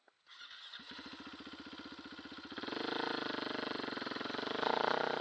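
Dirt bike engine running with an even pulsing beat, coming up to higher revs about two and a half seconds in and revving harder near the end.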